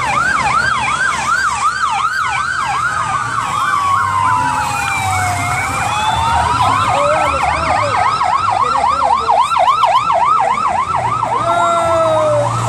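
Several vehicle sirens sounding together from a passing escort of police motorcycles and an ambulance. A fast yelp warbles rapidly up and down throughout, and a slower wail sweeps down and then back up around the middle. A low engine rumble runs underneath.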